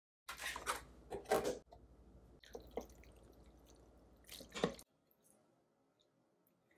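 Fork working through a bowl of cooked pasta shells and broccoli: moist squishing and scraping in several short bursts, with a few sharper clicks of the fork on the bowl, stopping about five seconds in.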